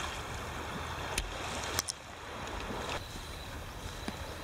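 Steady outdoor rushing noise with two sharp clicks, about a second and just under two seconds in; the noise drops a little in level shortly after.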